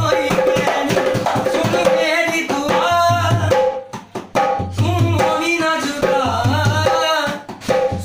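A newly built dholak played by hand, its deep bass head thumping under sharper slaps on the treble head, accompanying a man singing a qawwali-style song. The singing and drumming break off briefly about four seconds in and again shortly before the end.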